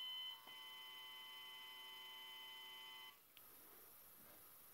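Small 24-volt brushed DC motor driven by pulse-width modulation through a power MOSFET, giving a faint steady high whine. The whine shifts in pitch with a click about half a second in as the speed setting changes, then stops about three seconds in.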